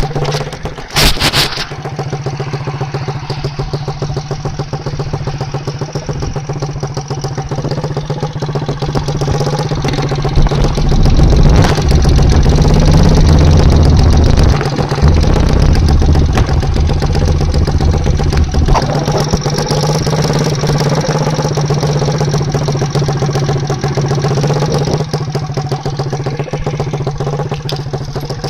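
Honda CD50S's small single-cylinder four-stroke engine running through a straight pipe with the silencer removed, mostly at a steady idle. There is a short sharp noise about a second in, and the engine runs louder and heavier from about ten to nineteen seconds in before settling back.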